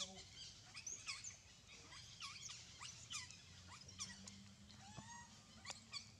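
A string of short, high-pitched animal squeaks and chirps, several a second, each sweeping quickly down or up in pitch.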